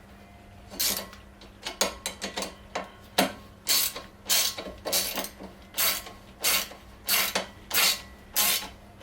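Ratchet spanner clicking through repeated back-strokes, about one and a half strokes a second, while tightening a 13 mm locking nut onto an M8 bolt. A few lighter clicks and taps come first, before the steady ratcheting starts about three seconds in.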